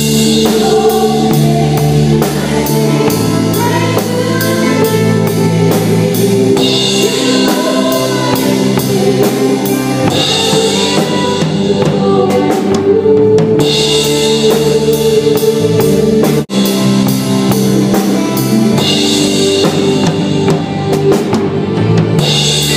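A live band playing a song: a drum kit keeps a steady beat under sustained chords, with singing. The sound cuts out for an instant about two-thirds of the way through.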